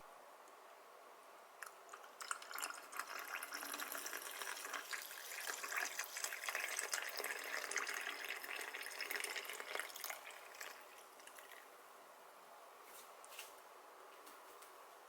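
Liquid being poured, a splashy trickle that builds and then tails off over about nine seconds, followed by a couple of faint clicks near the end.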